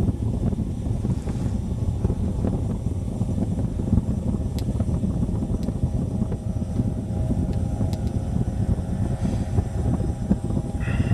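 Wind buffeting the microphone, a heavy, uneven low rumble. A faint engine hum from a distant ATV comes through in the second half.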